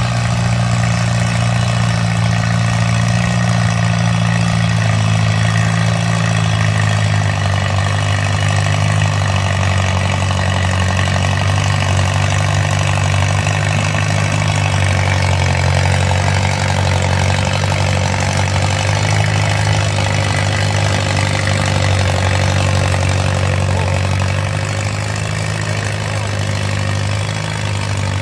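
Allis-Chalmers CA tractor's four-cylinder engine running steadily under heavy load as it pulls a weight sled. It eases off and gets quieter near the end.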